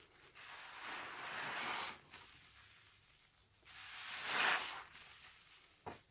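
A sponge full of washing-machine liquid and suds being squeezed twice, each squeeze lasting over a second, the second louder. A short click follows near the end.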